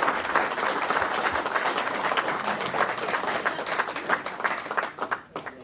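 Audience applauding after a swearing-in, dense clapping that thins out over the last second and stops.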